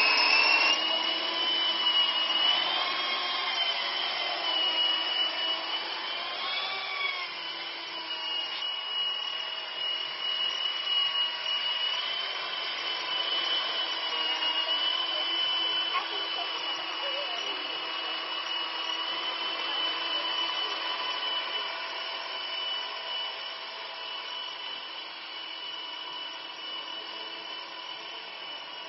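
Electric motor and rotor whine of a radio-controlled MD500 scale model helicopter in flight: a steady high whine whose pitch dips briefly a few times in the first several seconds, slowly fading as the helicopter climbs away.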